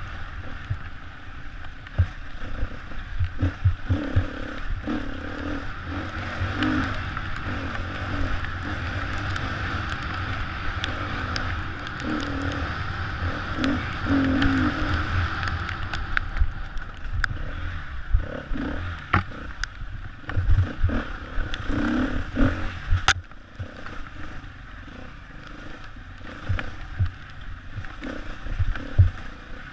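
Enduro dirt bike engine running and revving up and down while ridden over rough trail, heard from the rider's helmet with wind on the microphone and scattered knocks and clatter from bumps. The engine eases off for a moment about two-thirds of the way through.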